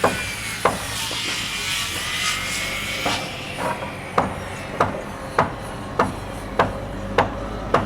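Pile-driving rig at work: sharp hammer blows over the steady hum of its engine, falling into an even beat of about one blow every 0.6 seconds from about halfway through.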